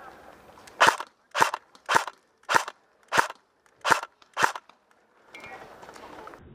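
Seven sharp cracks, evenly spaced a little over half a second apart, with near silence between them.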